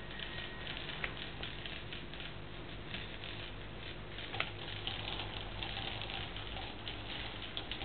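Small electric motor of a wired remote-controlled toy construction-kit model running, a steady light chattering of its gears and moving parts, with a couple of small clicks.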